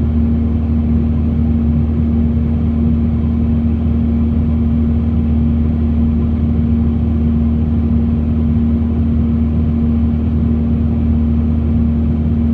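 John Deere 120 excavator's diesel engine running at a steady speed, a constant unchanging hum.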